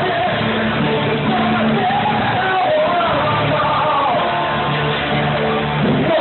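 Live acoustic pop/rock song: a man sings long, held notes over strummed acoustic guitar and a sustained electric bass line.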